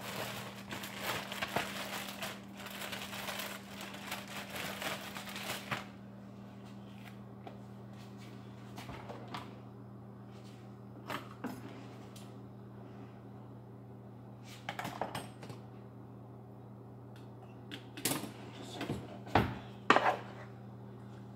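A plastic tortilla bag crinkling and rustling for the first several seconds, then scattered clinks and knocks of a wooden spoon against a metal pan of ground meat, loudest near the end, over a steady low hum.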